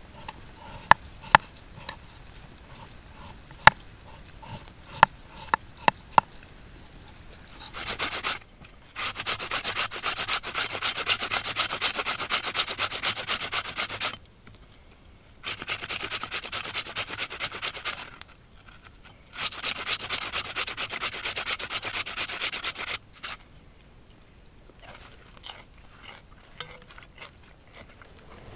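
Peeled potato grated on a stainless-steel box grater: three runs of fast rasping strokes, the first the longest at about six seconds. A few sharp clicks come before them, and scattered light ticks near the end.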